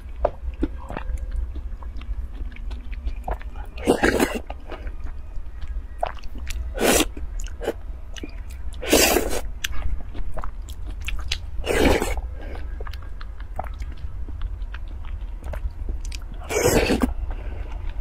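Close-miked slurping and chewing of spoonfuls of a milky jelly dessert: five loud, airy slurps a few seconds apart, with soft wet mouth clicks between them.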